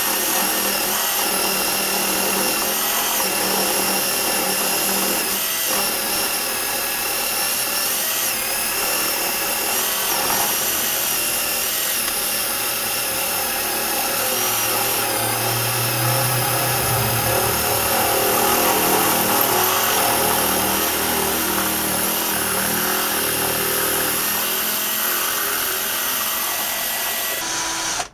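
Cordless drill running steadily, driving a drill bit held on the lathe's tool post to bore a grub-screw hole into a metal adaptor, with its motor pitch wavering slightly under the cutting load. The drill stops suddenly near the end.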